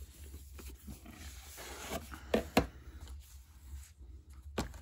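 Cardboard collector's box and its inner package being handled and slid apart: rubbing and scraping, with two sharp knocks a little over two seconds in and another near the end.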